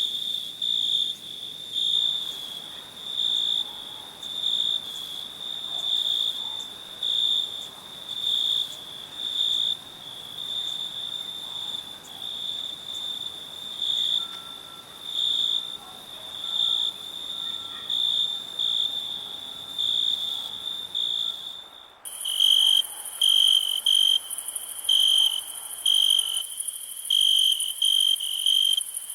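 Crickets chirping at night: a continuous high trill that swells into louder rhythmic chirps about once a second. About 22 seconds in it switches abruptly to another recording, with louder, sharper chirps over a steady very high hiss.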